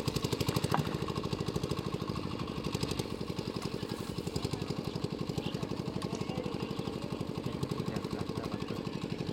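A small engine running steadily with a fast, even beat of about nine pulses a second.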